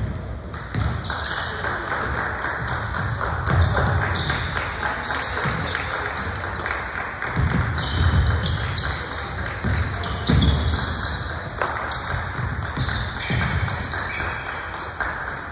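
Basketball game in a gym: the ball bouncing on the court floor at irregular intervals, many short high-pitched sneaker squeaks, and background voices from players and spectators.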